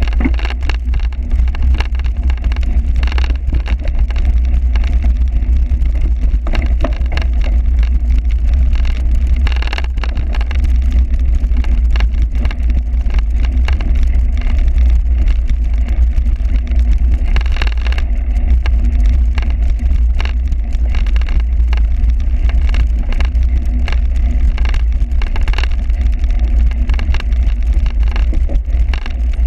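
Wind buffeting a camera microphone as a steady low rumble, with frequent irregular rattles and knocks from a bicycle jolting over rough cyclocross ground.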